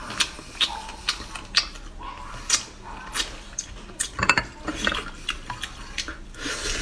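Close-up eating sounds of a man chewing numbing-spicy chicken wings: chewing and lip smacking heard as an irregular string of sharp short clicks.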